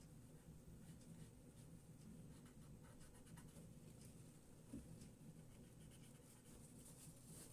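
Faint rubbing and scratching of a paper towel against a plastic model caboose shell, wiping off excess black paint with alcohol, with one small tap near the middle.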